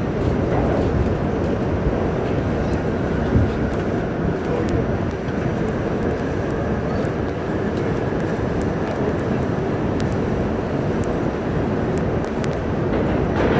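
New York City Subway D train car running steadily through the tunnel, heard from inside the car: a continuous rumble of wheels on rail with faint clicks.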